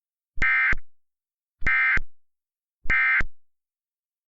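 Emergency Alert System end-of-message code: three short bursts of harsh, buzzy digital data tones, about a second and a quarter apart, signalling the end of the alert.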